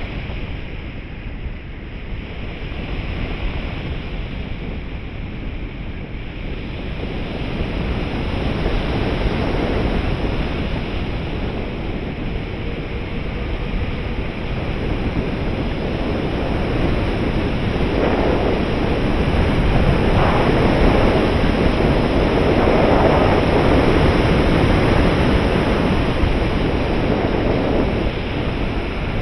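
Airflow rushing past a camera riding on a 3.6 m RC glider in flight: steady wind noise on the microphone that swells louder in the second half.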